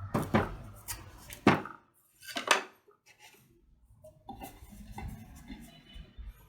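Hard objects knocked and set down: three loud clattering knocks in the first few seconds, then quieter knocks and handling noise. The saw's motor is not running.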